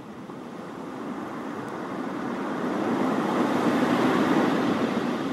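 Recorded ocean-wave sound played through a Dreamegg D3 Pro white noise machine's speaker: one swell of surf that builds over about three seconds and then recedes.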